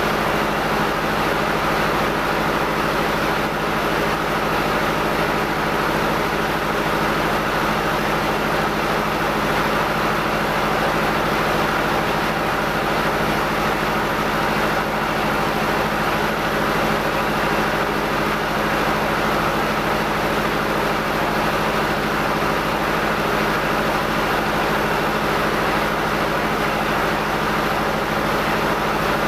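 Rice mill machinery, the rice husker and N50 rice polisher, running steadily while milling rice: a constant mechanical drone with a steady low hum and no change in pace.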